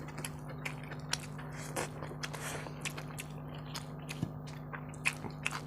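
A person chewing food with the mouth close to the microphone: many small, irregular wet clicks and smacks. A steady low hum runs underneath.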